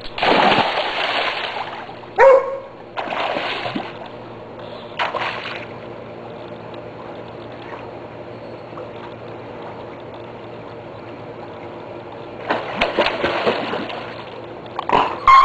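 Labrador retriever plunging into a swimming pool with a big splash, followed by a few shorter splashes about two, three and five seconds in. The water then stays fairly quiet until a run of splashing near the end as the dog surfaces and swims.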